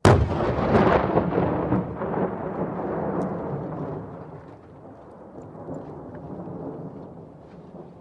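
Dynamite explosion: a sudden blast, then a long rumbling tail with scattered crackles that swells a little and dies away slowly over several seconds.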